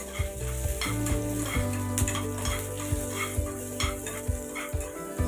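A spoon or ladle stirring and knocking in a pan of sizzling food, about two strokes a second, over background music.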